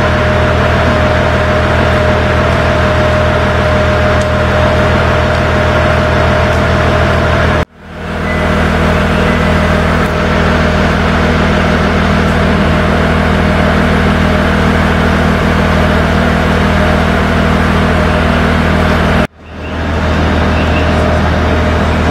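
HB-E300 series hybrid train running: a loud, steady drone over a low hum. It breaks off abruptly twice and fades back in each time.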